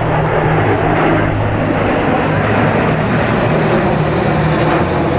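Loud, steady jet engine noise from a formation of L-39 Albatros jet trainers flying overhead.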